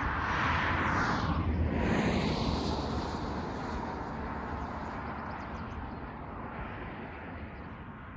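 A road vehicle passing by, its tyre and engine noise swelling and dropping in pitch in the first two seconds, then slowly fading away.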